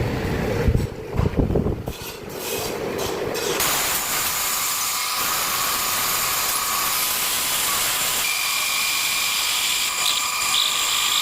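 Lathe turning a wooden workpiece: a low rumbling and knocking for the first few seconds, then from about four seconds in a steady hiss with a high whine, typical of a tool cutting the spinning wood.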